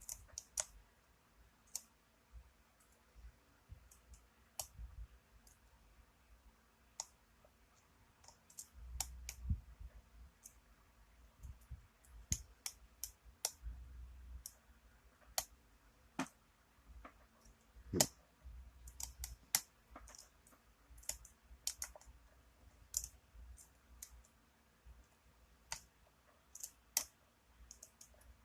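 Lock pick raking and lifting the pins of a pin-tumbler lock held under a tension wrench: scattered, irregular small metallic clicks as pins are pushed up and set, with a low rumble of the lock being handled now and then.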